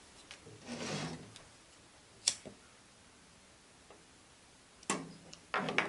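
Sharp metallic clicks from a cold-blast kerosene wick lantern being worked and lit, its burner-lift lever latching and its parts moving. There is a single loud click about two seconds in and a quick cluster of clicks near the end, with a soft rustle about a second in.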